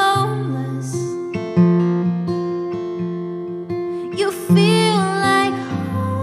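A woman singing a slow song to her own strummed acoustic guitar. Her voice is heard near the start and again about four seconds in, over ringing chords that change about once a second.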